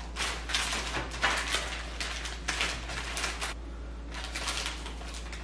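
Plastic candy wrappers crinkling as packets are picked up and shuffled around on a glass tabletop: a run of irregular rustles with a short pause about four seconds in.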